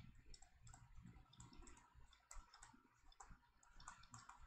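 Near silence with faint, irregular clicks of a computer mouse, one with each stroke as handwriting is drawn on screen.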